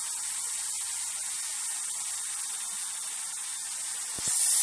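Steady hiss of air. Near the end, two sharp clicks are followed by a louder burst of hissing air.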